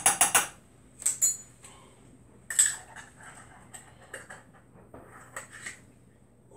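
A quick run of small clinks, a metal measuring spoon tapped against the glass baking dish to knock off white pepper, followed by a few scattered clicks and clatters of small spice containers being handled, the loudest about two and a half seconds in.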